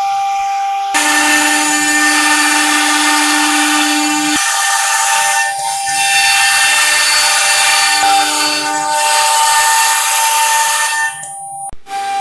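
CNC router spindle whining at high speed, then its bit carving an ornamental pattern into a wooden board. From about a second in, a loud hissing cutting noise sits over the steady whine, and it cuts off suddenly near the end.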